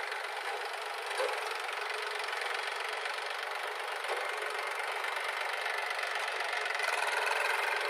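Diesel engines running steadily: an Eicher 380 tractor pulling its trailer forward, with a JCB 3DX backhoe loader running behind it. The sound grows a little louder near the end.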